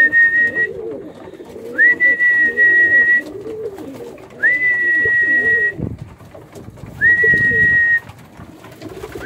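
Many fancy pigeons cooing together in their loft, the calls overlapping and wavering. Over them a high, steady whistle-like tone slides up quickly and holds for about a second, repeating about every two and a half seconds.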